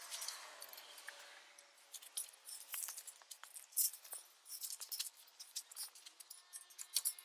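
Faint, irregular light clicks and clinks of metal hand tools and parts being handled during work on a car's steering rack.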